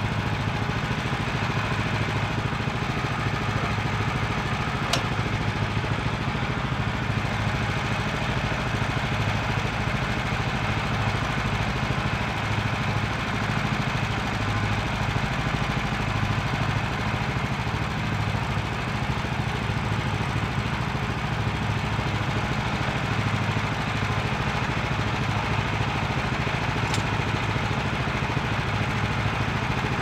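Woodland Mills HM126 portable band sawmill's gas engine running steadily at an even speed, with a couple of faint clicks.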